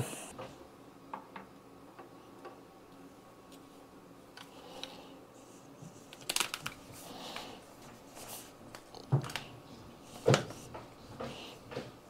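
Quiet handling noise: scattered light clicks, knocks and rustles, with a few sharper knocks around the middle and later on, over a faint steady hum.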